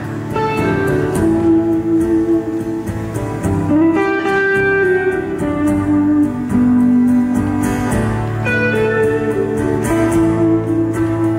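Solo amplified acoustic guitar playing a song's instrumental introduction, single notes and chords picked and left to ring.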